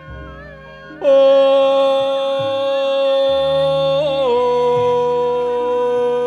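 Music with a long held high sung note: the singer comes in about a second in and holds the note, then slides down to a slightly lower held note with a small wavering ornament, over a quiet low repeating accompaniment.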